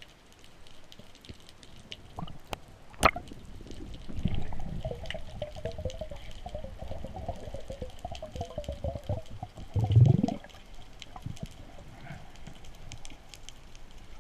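Underwater sound with faint scattered crackling clicks. A single sharp crack comes about three seconds in. From about four seconds a loud, low bubbling rumble with a wavering tone runs for several seconds and ends in a louder burst near ten seconds.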